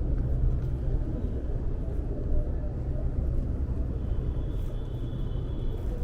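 Steady low outdoor rumble, with a faint high thin tone starting about two-thirds of the way through.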